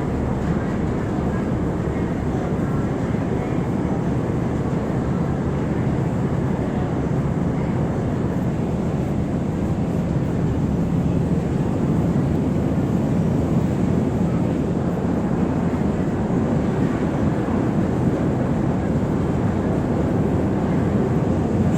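River ferry's engine running steadily: a continuous low rumble that grows slightly louder toward the end.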